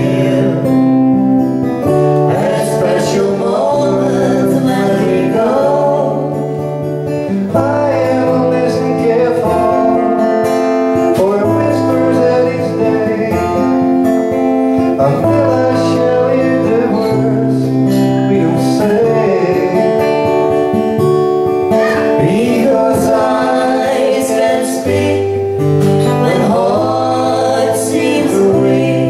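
Acoustic guitar playing with a woman singing, a live song.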